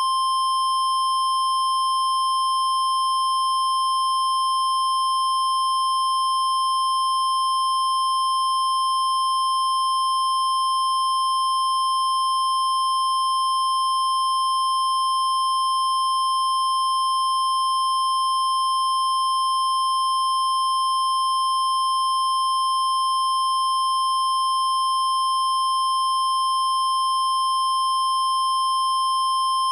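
Mock Emergency Alert System alert tone: a single steady, high-pitched electronic tone that starts suddenly and holds unbroken. It is the attention signal that an emergency warning broadcast is about to follow.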